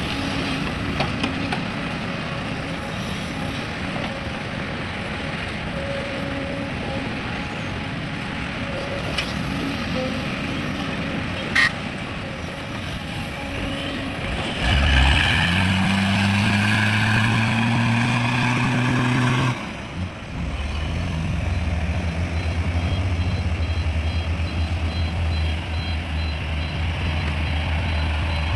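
Heavy diesel engine: a rumbling, noisy running with a sharp click partway through, then a strong rev rising in pitch for about five seconds that cuts off suddenly, after which it settles into a steady low, pulsing run.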